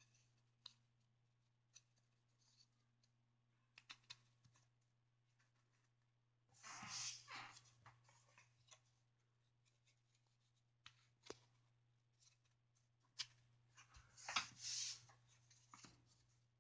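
Faint rubbing and scraping of laser-cut cardboard pieces as they are pushed and fitted into the slotted layers of a model skull, in two short spells, about six seconds in and again near the end, with a few scattered light clicks; otherwise near silence.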